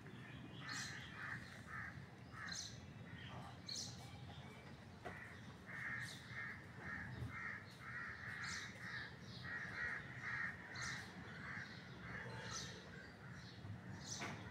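Crows cawing in runs of short, evenly spaced calls, faint, with a few brief high-pitched clicks between the runs.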